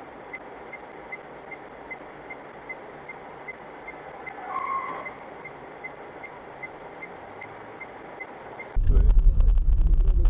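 Steady car road noise with a light, regular ticking about two to three times a second and a short tone about four and a half seconds in. Near the end it cuts abruptly to a much louder low rumble of another vehicle.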